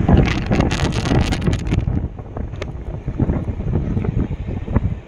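Wind buffeting the microphone, crackling hardest in the first two seconds, over surf washing onto the beach.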